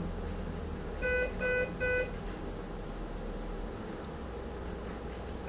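Electronic alarm beeping three times in quick succession, one steady tone per beep, over a low steady hum.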